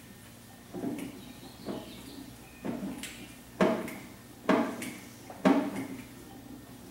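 A 20-pound Sausage Maker hand-cranked meat mixer being turned, its paddles working ground sausage meat and seasoning, with a clunk about once a second. Six strokes, the three near the middle the loudest.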